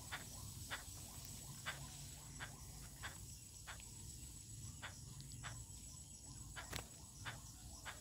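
Irregular light taps of birds pecking at scattered maize grains on concrete, about one or two a second, with one sharper tap near the end, over a faint steady high-pitched hiss.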